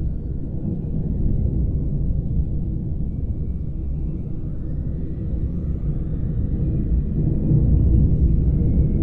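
Deep underwater-style ambience: a steady low rumble, with faint high tones drifting and gliding above it, swelling slightly near the end.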